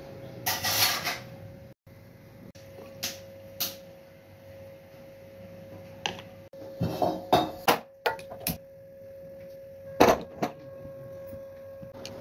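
Scattered knocks and clinks from handling a metal cooking pot and pressure cooker, several of them close together in the latter half, over a steady hum.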